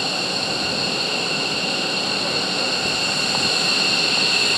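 F-15DJ Eagle fighters' jet engines running at taxi power: a steady high-pitched whine over a rumble, slowly growing louder.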